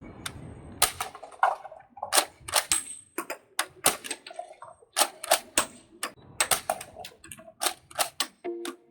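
Irregular sharp clicks and taps of a hard plastic toy gun being handled, a few each second.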